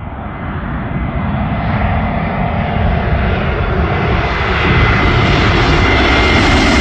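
Airplane engines getting steadily louder as the aircraft approaches for a fly-by, with a thin high whine over the deep engine noise.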